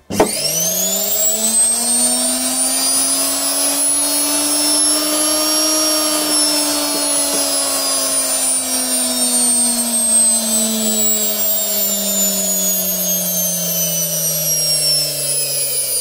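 Washing machine universal motor (brushed, six-wire type), its brush wired in series with the stator coil, switched on at the mains and running unloaded. Its whine shoots up to speed within the first second, climbs a little more until about the middle, then slowly sinks in pitch. The motor is running properly on this series connection.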